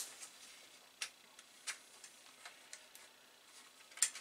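Faint, light metallic clicks and ticks at uneven intervals as fingers handle and grip the thin sheet-metal RF shield on an Amiga 1200 motherboard, with a slightly stronger pair of clicks near the end.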